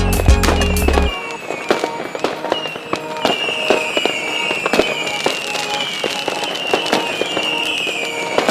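Background music with a heavy bass beat that cuts out about a second in. It gives way to dense crackling clicks and a high whistle tone that repeatedly slides down in pitch, about once every three-quarters of a second.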